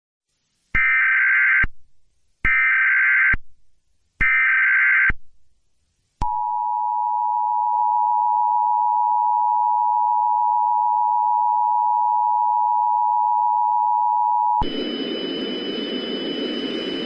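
Emergency Alert System signal: three short warbling digital data bursts (the SAME header), each just under a second, then the steady two-tone attention signal held for about eight seconds. Near the end it gives way to a steady hiss with a faint high whine.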